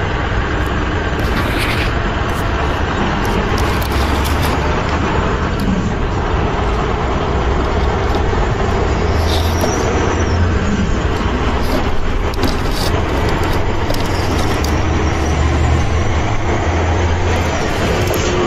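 Large truck engine running with a steady low rumble, with a few brief clicks and a short hiss.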